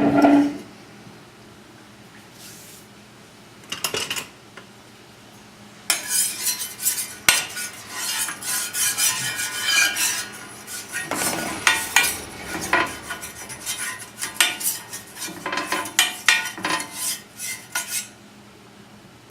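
Metal kitchen utensils and cookware clinking and clattering in irregular bursts: a brief clatter about four seconds in, then a long run of clinks from about six seconds in.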